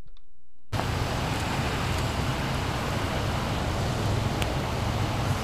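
A steady rumble and hiss of outdoor noise that cuts in abruptly less than a second in.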